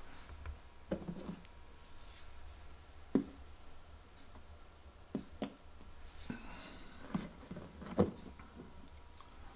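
Quiet room tone with a low hum, broken by scattered faint clicks and taps of handling, a second or two apart, the sharpest about three seconds in and near the end.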